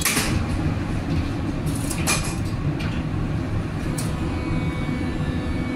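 Steady low rumble inside a St. Louis MetroLink light-rail car standing at a station, with short hissing bursts at the start, about two seconds in and about four seconds in.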